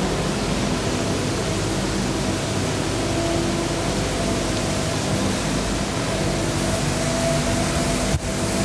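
Steady rushing noise with a low, wavering motor hum under it; the sound drops out for an instant near the end.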